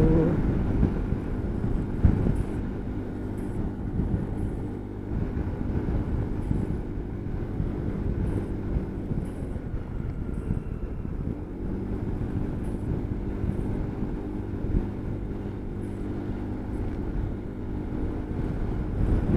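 Motor scooter engine running steadily under wind rumbling on the microphone while riding; the engine's steady tone comes through more clearly in the second half.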